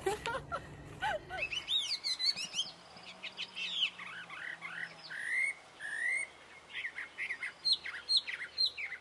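Birds chirping: many short, high whistled chirps that sweep up and down in pitch, beginning about two seconds in.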